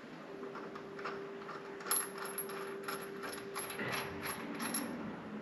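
Hand ratchet clicking in short irregular runs with light metallic clatter, as a bolt is started on the car's rear suspension. A steady hum runs underneath.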